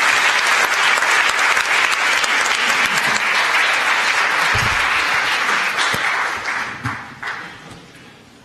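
Audience applauding, a dense steady clapping that thins out and dies away near the end, with a single low bump about halfway through.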